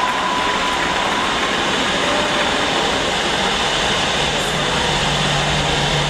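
Audience cheering and applauding in a steady wash of noise.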